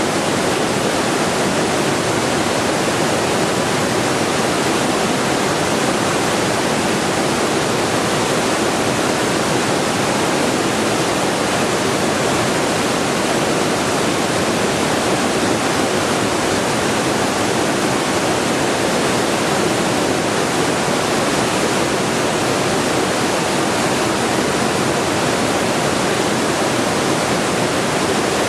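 Steady white noise: an even, unbroken hiss that never changes in level or pitch.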